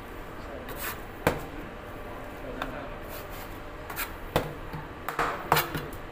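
Knife cutting a Malabar trevally on a wooden chopping board: several sharp knocks of the blade striking the board, with short scraping noises of the blade through the fish in between.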